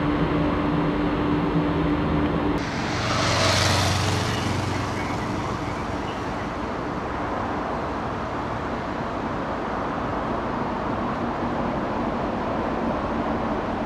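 Steady outdoor background rumble like distant traffic. A low hum holds for the first two and a half seconds, and a brief rushing swell of louder noise comes about three seconds in.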